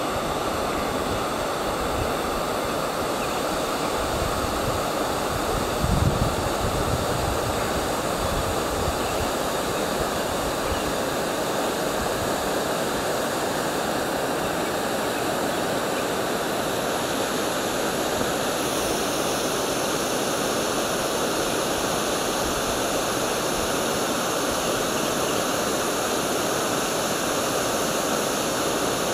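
Waterfall on the Vloman Kill rushing steadily, with a brief low thump about six seconds in.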